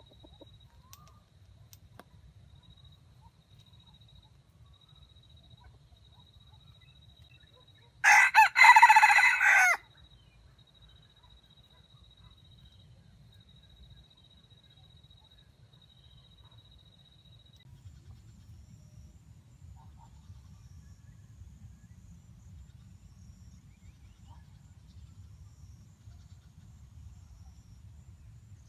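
A red junglefowl rooster (wild jungle chicken) crows once about eight seconds in. The crow is short, under two seconds, with a brief break just after it starts.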